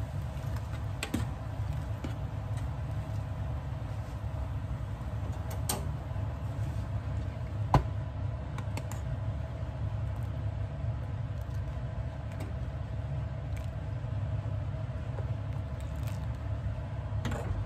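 A steady low hum runs throughout, with a few light clicks and taps scattered over it and one sharper click about eight seconds in.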